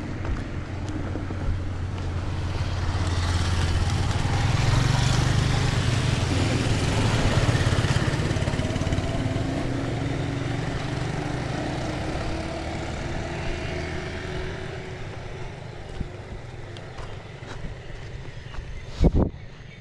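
A motor vehicle's engine running, growing louder over several seconds and then fading away, with one short sharp knock near the end.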